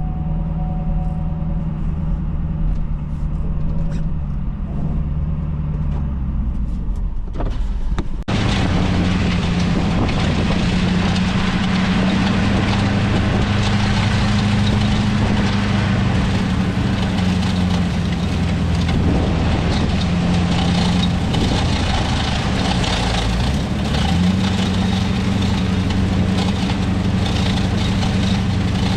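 Ford Super Duty pickup's engine running steadily while driving, its exhaust going through a newly fitted muffler instead of a straight pipe. About eight seconds in, a broad rushing hiss comes in abruptly and stays, and the whole sound gets louder.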